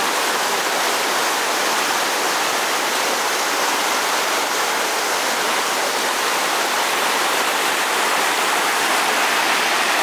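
Steady rushing of a mountain stream, an even, unbroken hiss of water.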